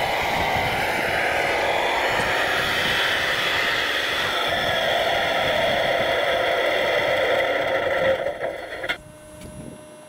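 Large-scale RC Hidromek 640WL wheel loader working: a steady whine from its electric drive and hydraulics, drifting slightly in pitch, that stops abruptly about a second before the end.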